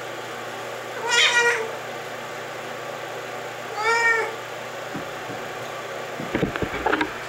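A wet cat meows twice, about three seconds apart, while being rubbed dry with a towel. Near the end come towel rustling and a few soft thumps.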